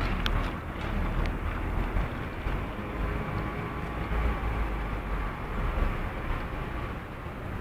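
Radio-controlled model boat running on the water: a steady noisy motor sound over a low rumble, with a few faint clicks.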